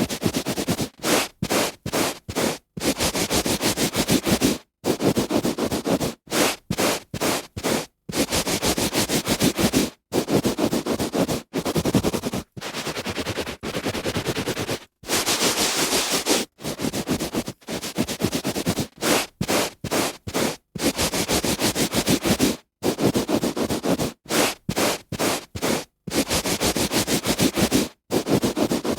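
A hand rubbing back and forth on a carpet, giving scratchy, rustling strokes. Some strokes are quick and some are drawn out over a second or two, and each one stops abruptly before the next.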